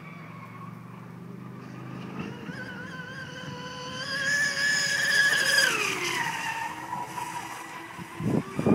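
The high whine of a fast electric RC boat, an Aeromarine Jesse James 21 driven by a Leopard 4074 brushless motor on a 5S2P pack, running flat out across the water: the whine rises and grows louder, then falls in pitch about six seconds in. Near the end a loud low rumbling noise cuts in.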